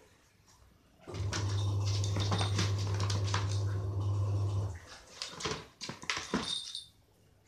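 A kitten's claws scratching and scrabbling against the sides of a plastic basin as it spins after its tail, in quick irregular scrapes and taps that stop shortly before the end. A steady low hum starts about a second in and stops about halfway through.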